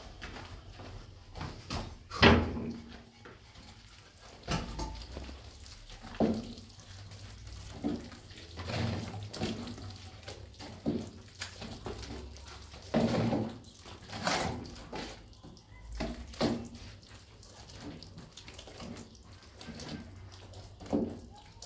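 Gloved hand stirring and kneading wet plaster mix in a shallow basin: irregular sloshing and squelching, with a sharp knock about two seconds in.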